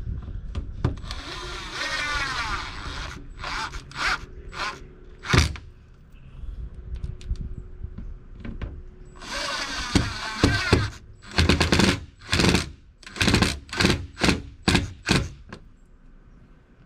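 Cordless drill running in two longer bursts, its pitch climbing as the motor spins up. These are followed by a string of short trigger pulses, used to make the mounting holes or drive the screws for a boat fish-finder mount.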